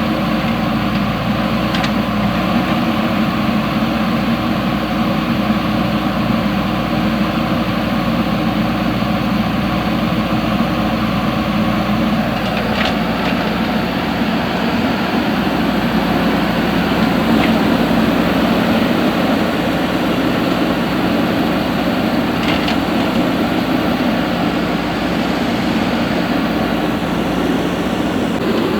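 JCB 3DX backhoe loader's diesel engine running steadily under working load, its note thickening about halfway through.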